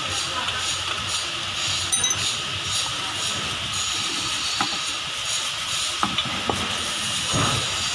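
Tools and a cast-iron tractor front-axle gear case cover being handled on a concrete floor: a few sharp metal clinks, one ringing briefly about two seconds in, and a duller knock near the end, over a steady background hiss.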